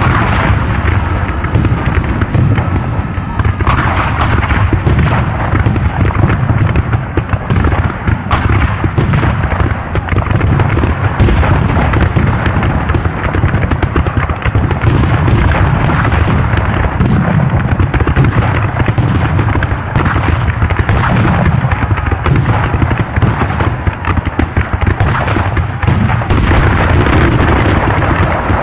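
Battle sound effect of massed gunfire: many shots crackling and overlapping without a break, with booms of artillery among them.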